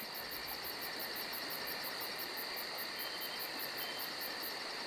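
Night insect chorus: crickets chirping in an even, fast pulse of about six chirps a second over a steady high insect drone.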